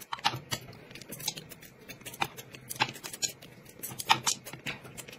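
A person eating: irregular wet clicks and smacks of chewing, several a second, with light taps of chopsticks against dishes.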